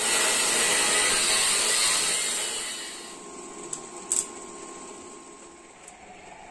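Angle grinder grinding the steel body of an auto rickshaw, loud for the first two and a half seconds and then fading away. A couple of short sharp clicks follow.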